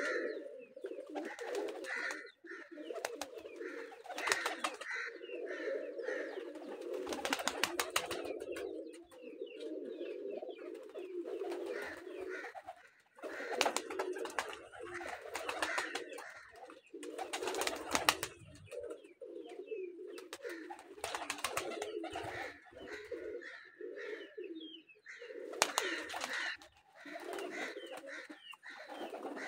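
A flock of domestic pigeons cooing almost without pause in overlapping low, pulsing calls. Several short, loud bursts of noise are heard, the longest about a second.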